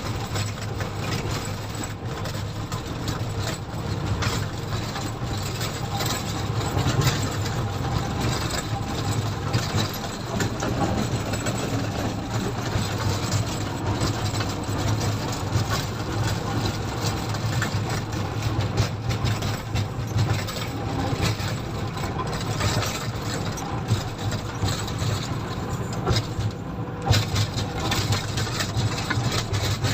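Komatsu motor grader's diesel engine running steadily, with frequent knocks and rattles from the machine.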